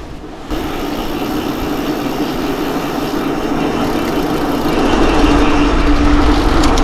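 Mountain bike rolling at speed: a steady hum from the tyres with wind rushing over the microphone. It starts abruptly about half a second in and grows louder, with more low rumble from about five seconds in.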